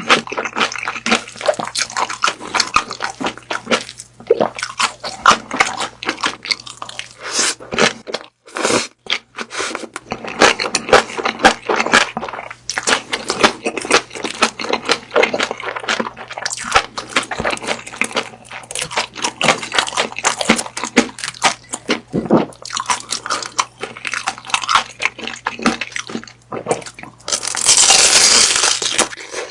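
Close-miked eating of grilled beef sausage: dense, irregular wet clicking and crunching of biting and chewing, with a short pause partway through and a louder continuous rush of noise lasting about two seconds near the end.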